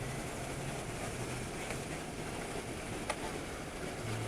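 Steady open-air noise with wind buffeting the microphone and a faint low hum, broken by a single sharp click about three seconds in.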